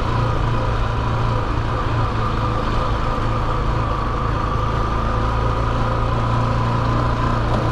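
Motorcycle engine running steadily at an even pitch while riding at a constant speed.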